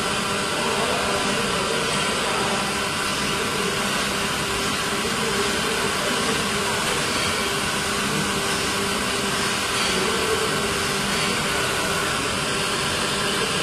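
Injection molding machine running a PET preform mold: a steady mechanical drone and hiss with a few constant tones, and no separate clamp or ejection strokes.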